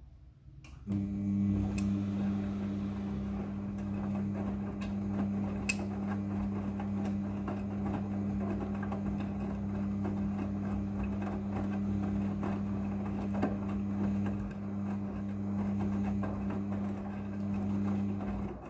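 Midea front-loading washing machine turning its drum in the wash cycle: a steady motor hum with clothes and water tumbling and knocking inside. It starts about a second in and stops shortly before the end.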